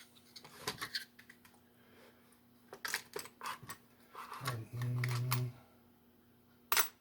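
Scattered light clicks and knocks of small metal parts and pins being picked through and handled on a workbench, with a loud click near the end. A brief low hum about two-thirds of the way through.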